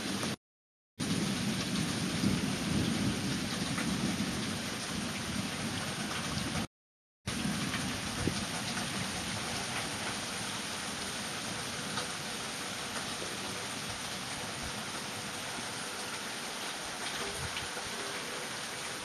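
Rain falling steadily in a thunderstorm, with a low rumble of thunder in the first few seconds. The sound cuts out to silence twice, briefly, in the first seven seconds.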